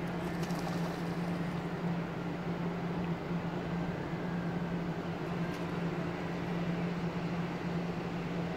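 A steady low mechanical drone with a constant hum, unchanging throughout.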